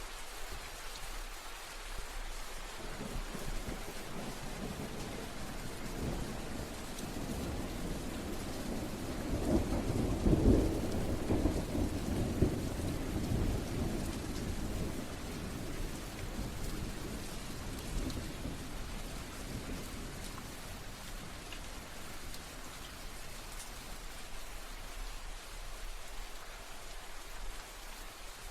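Steady rain falling, with a low roll of thunder that builds from a few seconds in, peaks about ten seconds in and dies away in the second half.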